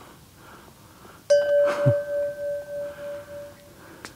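A single bell ding, struck about a second in and ringing on with a pulsing, fading tone for about two seconds: a notification-bell sound effect for a subscribe reminder.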